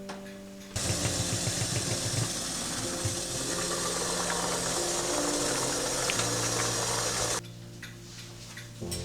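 A small electric kitchen appliance motor, such as a blender, running loud and steady for about six and a half seconds, switched on suddenly under a second in and cut off suddenly near the end, over soft background music.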